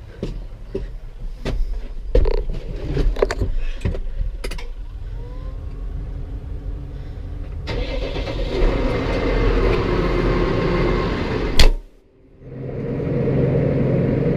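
A vehicle engine running, with clicks and knocks over a low rumble in the first few seconds. It gets louder about eight seconds in, breaks off briefly after a sharp click near the end, then comes back as a steady drone.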